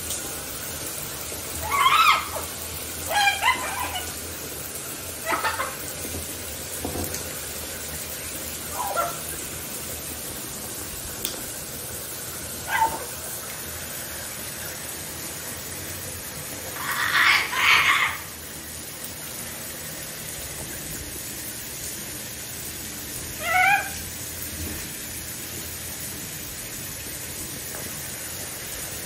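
Wet macaw bathing on a tiled shower floor, giving short squawking calls every few seconds, about eight in all, the longest and loudest a little past the middle, over a steady hiss.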